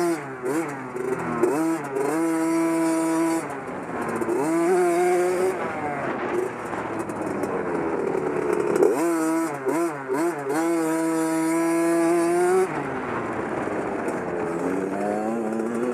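Dirt bike engine being ridden hard: it revs up and holds, then drops as the throttle is rolled off, several times over. The longest pull comes a little past the middle and holds high for about four seconds before the engine falls back to a lower, uneven running near the end.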